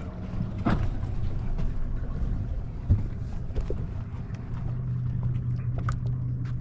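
A boat's motor hums steadily at idle while the boat sits near a trap float. A few faint clicks and slaps of water against the hull come through the hum.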